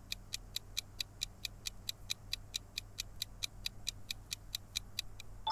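Countdown-timer sound effect: rapid, even clock ticks, about five a second, with a short chime starting at the very end as time runs out.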